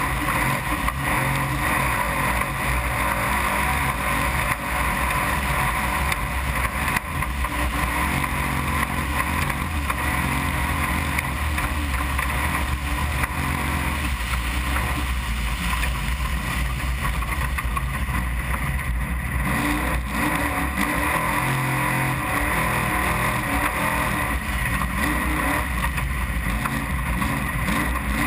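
Desert-racing trophy truck's engine running hard through a time-trial lap, a loud, steady drone with only small shifts in revs.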